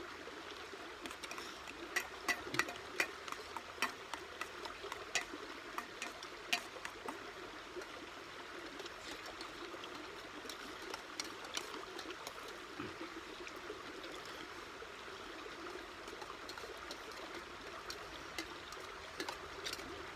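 Spoons clinking and scraping against stainless steel bowls during a meal: sharp short clicks, bunched in the first several seconds and again about halfway through. Under them runs a steady rushing sound like flowing water.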